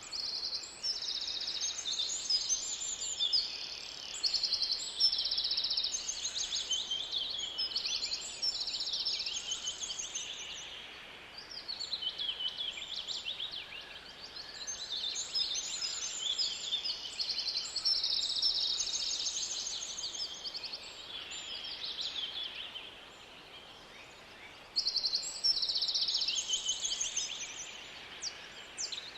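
Several songbirds singing at once, with chirps and rapid trills overlapping. The song thins out twice for a few seconds, over a faint steady background hiss.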